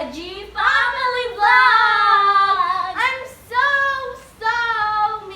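A child singing a short phrase of several held, high notes with brief breaks between them.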